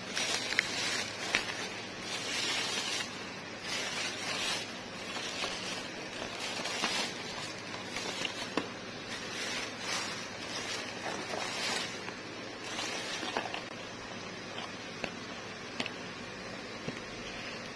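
Thin plastic carry-out bag crinkling and rustling in irregular bursts as paper food boxes and wrapped burgers are pulled out of it. The rustling dies down about two-thirds of the way through, leaving a few light taps and clicks as items are set on the table.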